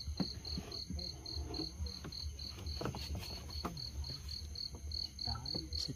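Cricket chirping steadily in a high-pitched pulsing trill, about four pulses a second.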